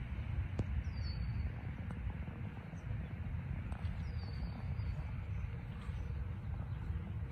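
Low, gusty rumble of wind on the microphone, with a bird giving a short high call that sweeps down in pitch, twice.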